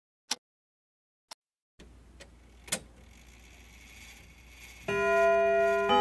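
Clock ticking, one sharp tick about a second apart. Then a different clock recording with a faint background hiss and two more ticks, and near the end a loud alarm tone sounds, steady and several-toned.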